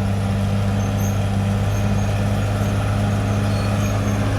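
Caterpillar D6R XL bulldozer's diesel engine running steadily, a constant low drone with no change in pitch or level.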